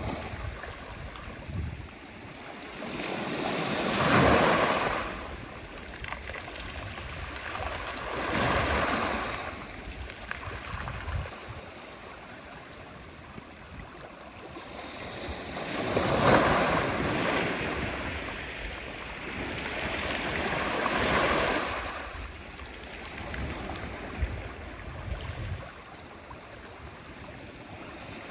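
Sea waves breaking and washing on a shore, surging four times and falling back to a steady hiss of surf between.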